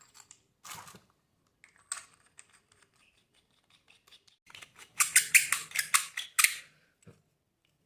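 Small parts of an aluminium laser pointer being handled and fitted together, with the battery going in: scattered light clicks and scrapes, then a rapid run of sharp scratchy clicks about five seconds in that lasts about a second and a half.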